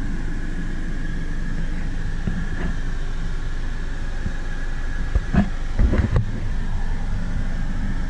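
Steady road and engine noise inside a moving car's cabin, with two brief louder sounds about five and six seconds in.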